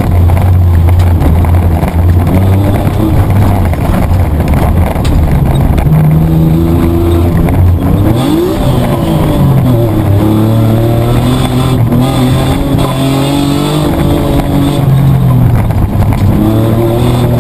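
Mitsubishi Triton's petrol engine under load, heard from inside the cabin while racing off-road. The engine note holds steady, sweeps up and drops back about eight seconds in, then settles at a higher pitch, over constant rumble from the tyres and chassis.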